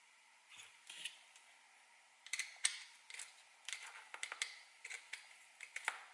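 Irregular small clicks and taps of screw hardware being handled and a screw turned into a plastic camera mount. The clicks start about two seconds in and come thick and uneven after that.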